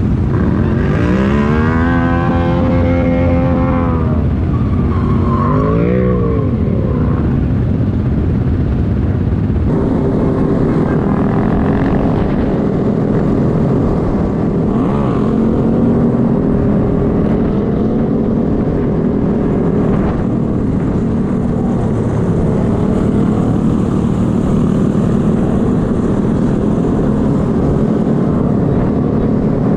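Honda Grom motorcycle's small single-cylinder engine, revving up and easing off in the first few seconds, then a second shorter rev. After an abrupt change about a third of the way in, it runs at a steady pitch over a constant rushing noise.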